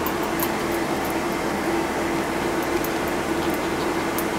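Steady cab noise inside a new Ford truck on the move: engine and road noise with the heater blower fan running, carrying a steady low hum. A few faint light clicks sound over it.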